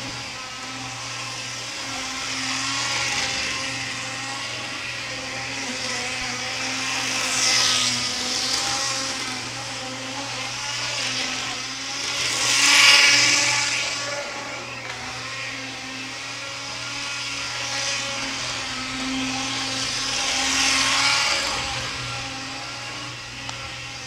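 HO-scale model train running on the layout's track, a steady electric motor whine with rolling wheel noise. It swells and fades as the train passes close by, three times, loudest about halfway through.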